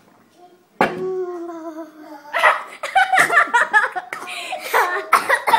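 Girls laughing. About a second in, one long drawn-out vocal sound that falls slightly in pitch, then choppy bursts of giggling and laughter from two girls.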